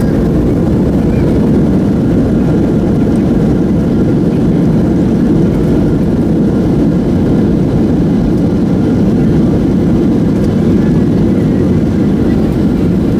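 Steady jet engine and airflow noise heard inside the cabin of a Boeing 737-700 during landing, a deep, even rumble.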